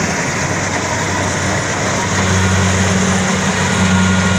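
Kubota rice combine harvester running steadily under load, its diesel engine giving a constant low hum over a dense mechanical clatter and whirr, a little louder from about halfway through.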